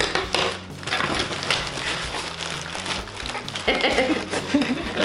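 Cardboard box being torn open by hand: packing tape ripping and cardboard flaps and plastic wrapping rustling and crackling, with a short burst of voice near the end.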